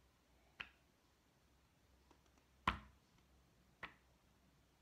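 Three short, sharp clicks or taps in a quiet room: a faint one about half a second in, the loudest a little past the middle, and a third about a second after that.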